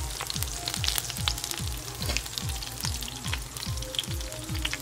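Chicken wings frying in hot oil with chili flakes in a pan, sizzling steadily with scattered pops. A low, regular beat about four times a second runs underneath.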